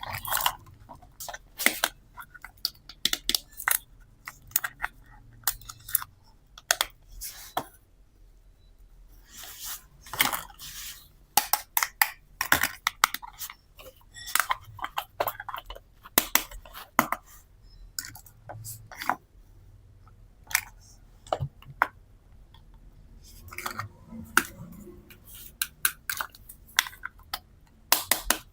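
Small plastic toy pieces being handled, clicking and tapping together in quick irregular bursts.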